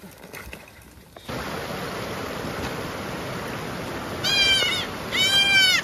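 A young goat kid bleating twice, high cries about a second apart, the second one rising and then falling, over the steady rush of a creek that comes in about a second in.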